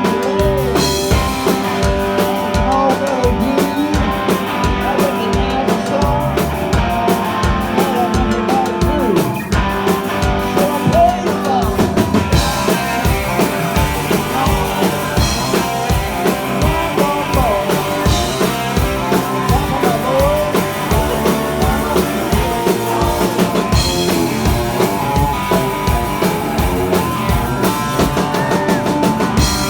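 Rock band playing live, a drum kit keeping a steady beat under electric guitars.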